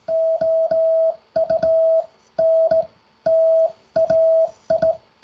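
Morse code sidetone sent by hand on a straight key. A steady mid-pitched beep is keyed on and off in uneven short and long elements, spelling out a practice word, with a click as each element starts.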